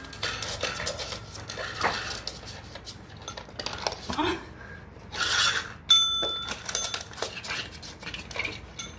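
A pink tap-style call bell is struck once about six seconds in and rings briefly with a bright metallic ding. Light clicks and shuffling of small dogs moving around it on the floor come before and after.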